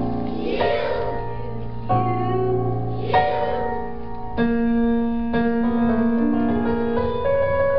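Instrumental break in a song's keyboard accompaniment: sustained piano-like chords changing every second or so, with two brief swelling accents in the first few seconds.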